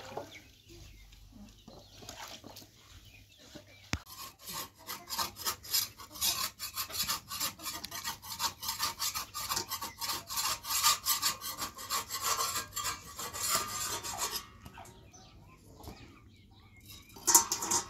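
A wooden spatula scraping rapidly over flatbread on an iron griddle pan: a dense run of short, raspy scrapes that starts about four seconds in and stops a few seconds before the end.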